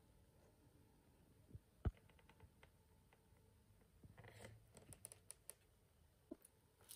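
Near silence with faint handling sounds at a table: a sharp knock about two seconds in, a few light clicks, and a short rustle a little after four seconds as a cardboard food tub is picked up.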